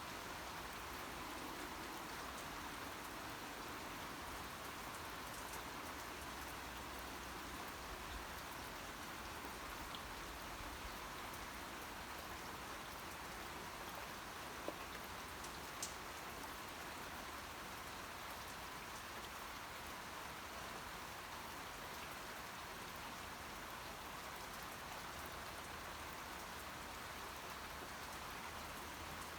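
Steady rain falling on a surface, an even patter of drops with a couple of louder single drop hits about halfway through.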